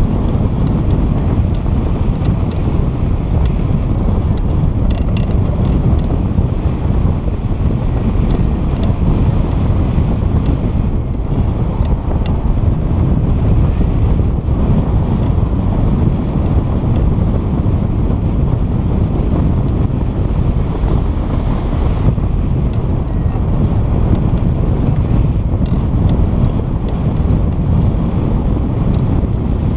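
Wind buffeting the microphone: a loud, steady rumble with faint scattered ticks.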